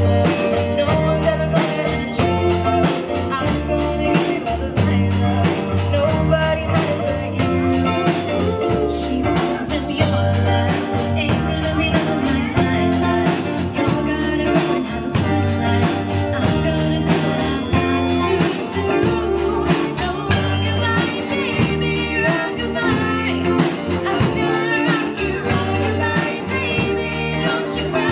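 Live band performing a song: a female lead singer over electric guitars, bass guitar and drums keeping a steady beat.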